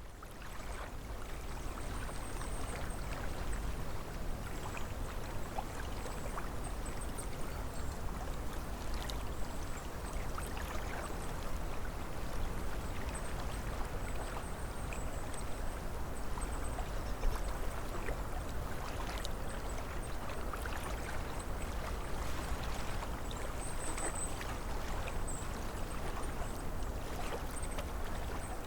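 Small waves lapping and splashing against a lake shore, with many small irregular splashes over a steady wash of water and a low rumble of wind.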